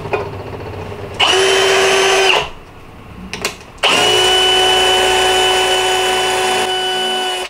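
Milwaukee cordless drill boring into a thin aluminium tube, running at a steady whine. It runs in a short burst of about a second, then again for over three seconds from about four seconds in, with a click between the two runs.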